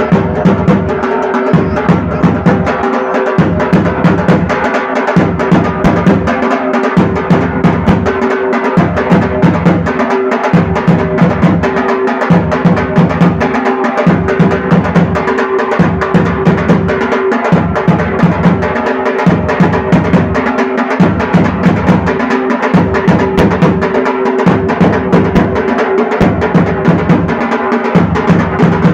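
Nobat drumming: shrine drums beaten in a fast, steady rhythm, the pattern repeating about once a second.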